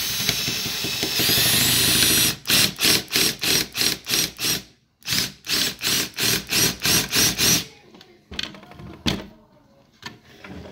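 Cordless drill boring out a metal rivet in a plastic armor belt: a steady run of about two seconds, then short repeated trigger bursts, about three a second, with a brief pause between two series. Near the end it falls quieter, with a single sharp click.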